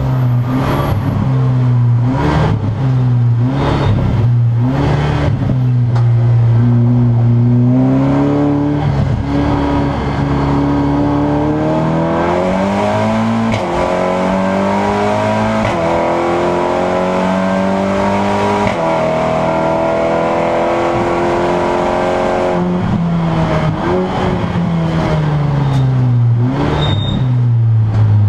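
A Seat Leon Supercopa race car's turbocharged four-cylinder engine, heard from inside the cabin. It climbs hard through several quick upshifts, holds high, then winds down with downshifts under braking near the end.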